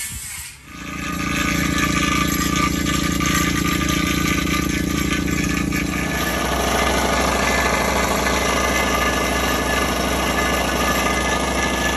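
A construction machine's engine running steadily at a constant speed; its note changes about six seconds in, turning deeper.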